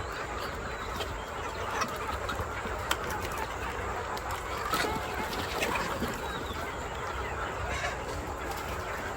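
Chickens clucking, with scattered short sharp ticks over a steady low hum and hiss.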